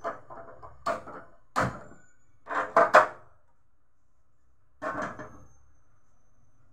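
Aluminium cookware clanking and knocking on a steel gas stove: a run of short knocks with a brief metallic ring in the first three seconds, the loudest near three seconds in, then one more about five seconds in as a pot is set down on the burner.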